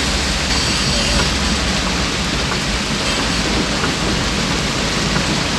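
Heavy rain pouring steadily onto a car, heard from inside, with a low steady rumble of the car underneath.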